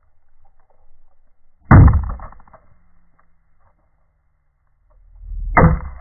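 Two loud, sudden thumps about four seconds apart, the second swelling in briefly before it hits; each dies away over about a second.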